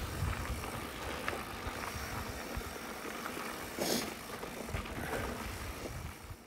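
Mountain bike rolling downhill on a dirt singletrack: a steady rush of tyre and wind noise with scattered small knocks and rattles, and a brief louder rush about four seconds in.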